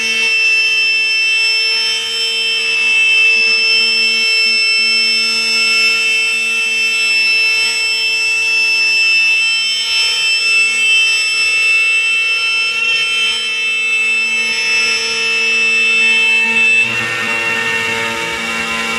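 1325 four-axis CNC router's spindle whining at a high, steady pitch as its bit cuts along the edge of a curved plywood chair back. About seventeen seconds in, the whine shifts slightly higher and a lower rumble of cutting joins it.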